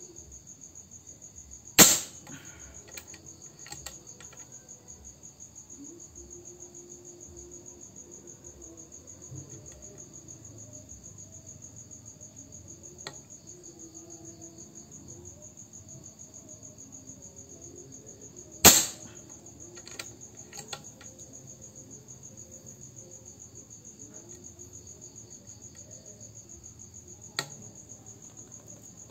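Two shots from a suppressed Reskal air rifle, sharp cracks about 17 seconds apart, with a few fainter clicks between. Crickets chirp steadily throughout.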